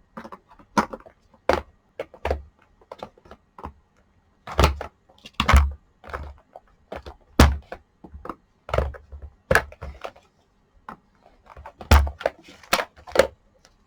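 Plastic and metal parts of an old rice cooker clicking and knocking as a stuck part is worked and pried to get it loose: irregular sharp clicks with several heavier thuds among them.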